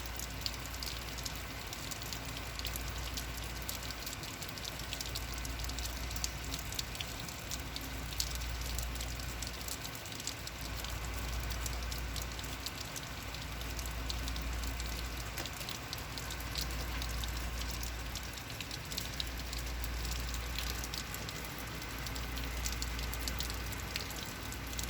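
Heavy rain falling steadily, with many close drops pattering. A deep low rumble swells and fades underneath every few seconds.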